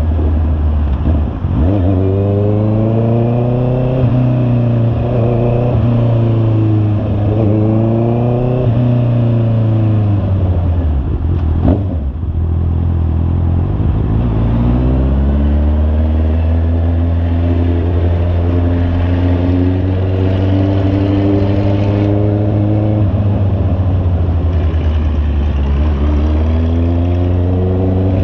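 Honda CB650R's inline-four engine through an aftermarket imba pure muffler, under way: revving up through the gears several times and easing off between, with a stretch of steady cruising in the middle. A sharp knock about twelve seconds in.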